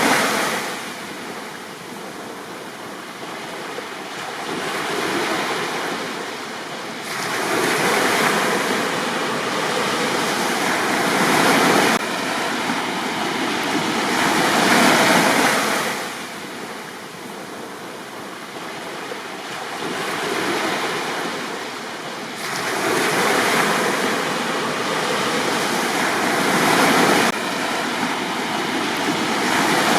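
Sea waves breaking and washing up a beach, the surf swelling and falling back every several seconds.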